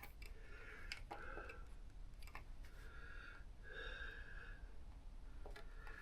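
Faint breathing, three soft breaths, with a few light clicks in between.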